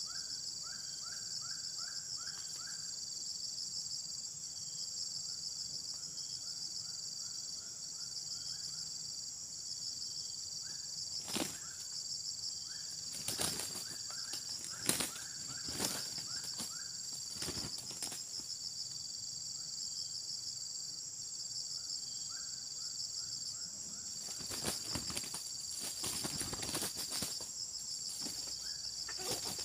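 Steady high-pitched pulsing insect chorus, with quick series of short rising chirps now and then. Brief noisy bursts, louder than the chorus, come in a cluster around the middle and again near the end.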